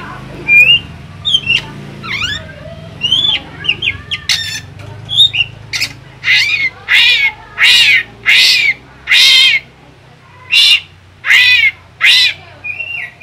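Caged drongo calling: a string of short chirps and whistles, then loud, raspy calls repeated about once every 0.7 s, with a short pause before the last three. These are challenge calls aimed at a caged magpie robin that does not answer.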